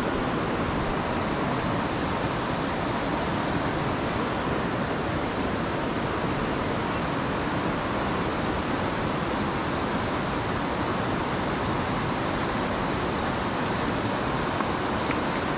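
Steady rush of a fast-flowing river running over rocks, an even hiss without breaks.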